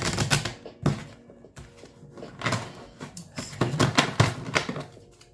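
A deck of tarot cards being shuffled by hand: irregular rustles, slaps and knocks of the cards, in clusters near the start, about a second in, and again from about two and a half to four seconds.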